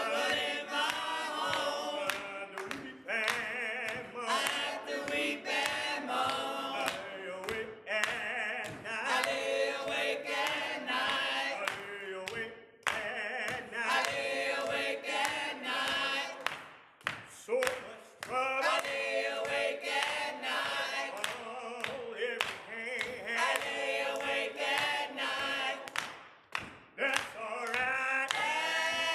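A small group of men and women singing a gospel song a cappella, with steady hand clapping keeping time.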